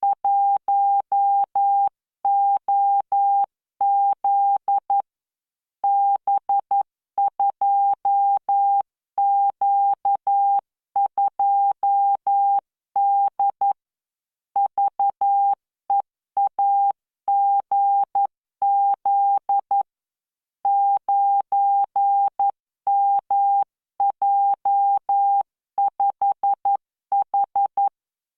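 Morse code practice tone from CW training software: a single steady beep keyed on and off in dots and dashes at 11 words per minute, standard spacing, characters separated by short pauses.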